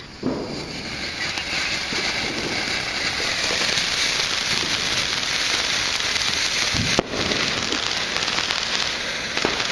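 A firework burning with a steady, dense crackling hiss that builds over the first few seconds. A single sharp crack comes about seven seconds in.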